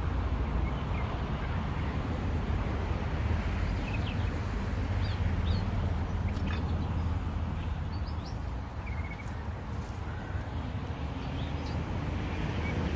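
Steady buzz of a crowd of honeybees around an opened hive, with small birds chirping now and then.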